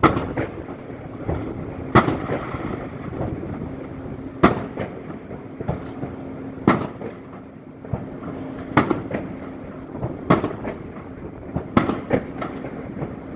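Aerial fireworks shells bursting at a distance, a sharp bang every second or two, about eight in all. A steady low hum sets in about four seconds in and runs beneath the bangs.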